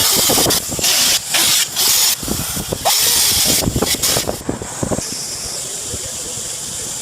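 Repeated loud bursts of hissing, each lasting under a second, with some low knocks among them; from about five seconds in it settles to a steady, softer hiss.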